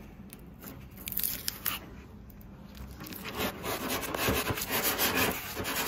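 Coarse 80-grit sandpaper on a hand sanding block rubbed back and forth over cured epoxy filler on a windsurf board's nose, shaping the curve. The scraping strokes start about halfway through and get louder.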